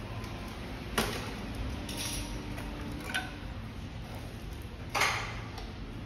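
A few light metallic clicks and clinks as a fat-tyre ebike's spoked wheel and metal axle are handled, with the sharpest knock about a second in and the loudest clink, ringing briefly, near the end.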